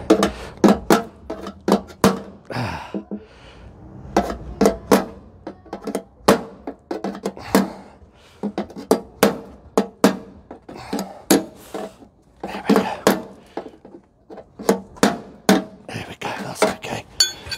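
Hammer striking a bent file held as a dolly against a welded steel car sill repair panel: dozens of sharp metallic blows in uneven runs with short pauses. The edges, which overlap slightly from welding heat distortion, are being knocked down flush for a seam weld with no filler wire.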